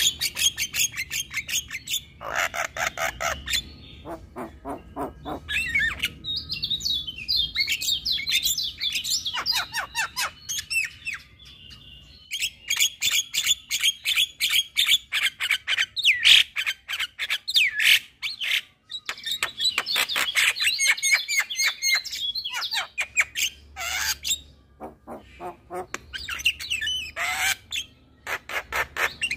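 Javan myna singing in rapid chattering runs of short, high notes, with a few brief pauses between phrases.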